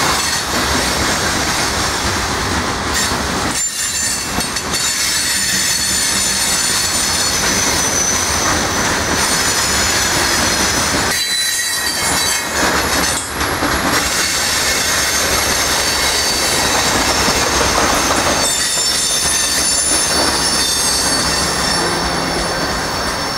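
Freight cars of a passing manifest train rolling by close, steel wheels rumbling and clacking over the rails. High-pitched wheel squeal comes and goes twice.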